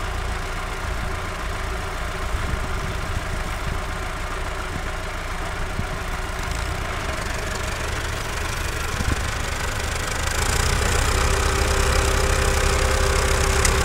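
Tractor diesel engine labouring in first gear under heavy load, pulling an overloaded trolley stuck in soft sand. It runs steadily and gets louder about ten seconds in as the front wheels rear up off the ground.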